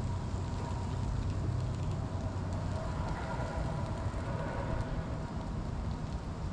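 Steady low rumble of outdoor background noise with a faint thin tone above it.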